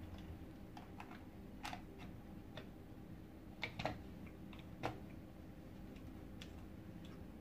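Scattered light clicks and taps, about a dozen at uneven intervals with the loudest near the middle, from small parts of a vacuum cleaner head being handled and fitted together during reassembly. A faint steady low hum runs underneath.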